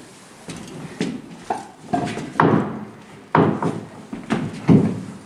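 Irregular knocks and clunks, about nine in five seconds, as a large glass panel is pushed and shifted into place against a wall on wooden blocks.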